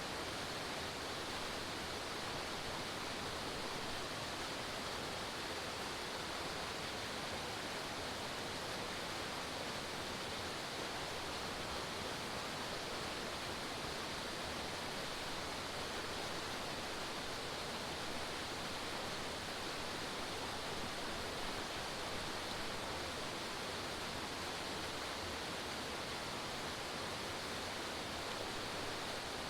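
Forest waterfall: a steady, even rush of falling water with no breaks.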